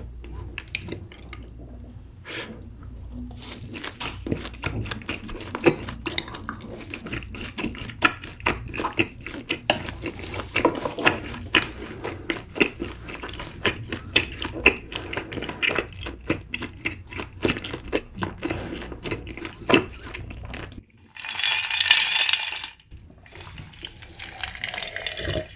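Close-miked eating: wet chewing and squelching of food in the mouth, with many small sharp clicks and smacks. About 21 seconds in comes a denser burst of rushing noise lasting about two seconds.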